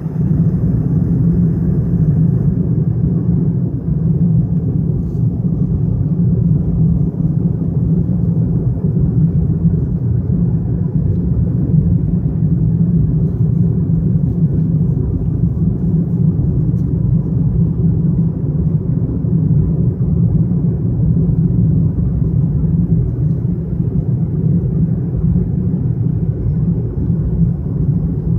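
Steady low road rumble inside a moving car.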